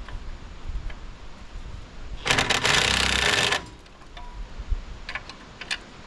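Impact wrench hammering in one burst of about a second and a half, running a leaf-spring bolt nut off, followed by a few light metallic clicks.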